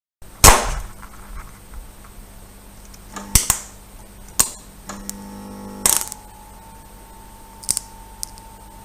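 A series of sharp clicks and knocks, the loudest about half a second in, then a few more spaced a second or so apart, over a low steady hum; a faint steady tone sets in about halfway through.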